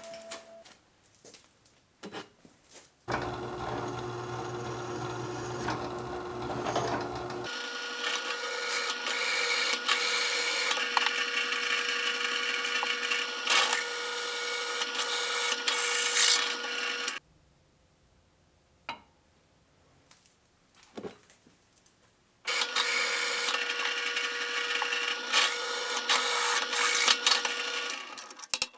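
Angle grinder running and cutting through the steel body of a gas forge, a steady whine with grinding noise, in two long passes with a break between them.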